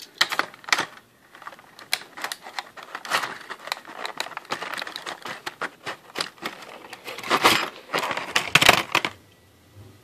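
Clear plastic packaging tray crinkling and clicking as small die-cast toy cars are handled in it: a busy run of clicks and crackles, loudest a little before the end, then dying away.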